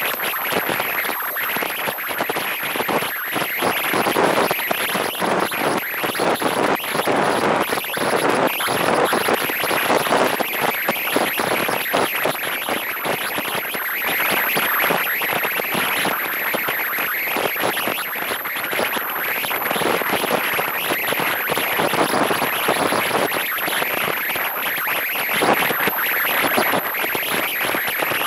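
Wind rushing and buffeting over a car-mounted camera's microphone at speed: a steady rushing noise with irregular gusty surges and a thin high whine.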